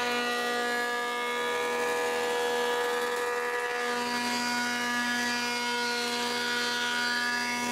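Woodworking jointer-planer running with a steady motorised whine while rough boards are surfaced. The pitch of the hum shifts about four seconds in.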